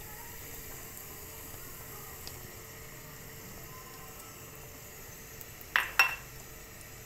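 An egg frying in hot oil in a pan, a steady sizzle. Near the end come two quick sharp knocks, the loudest sounds here.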